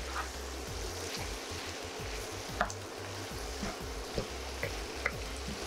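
Pieces of country chicken with dried red chillies and shallots sizzling in oil in a non-stick frying pan, cooking in their own juices with no water added, while a wooden spatula stirs and scrapes them with scattered light clicks.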